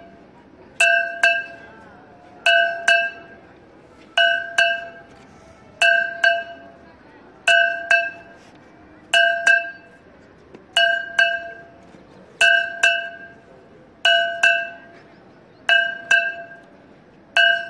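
A metal aarti bell struck in pairs, two strokes about half a second apart, repeating steadily about every second and a half, each stroke ringing on before it dies away.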